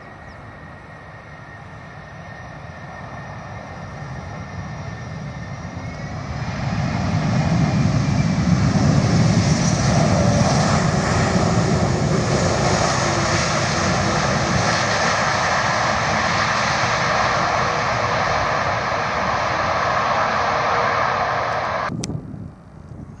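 Airbus A330 twin jet engines during landing rollout: a steady fan whine over a softer rush at first, then about six seconds in the engines spool up into a loud, steady roar, typical of reverse thrust braking the airliner. The sound cuts off suddenly near the end.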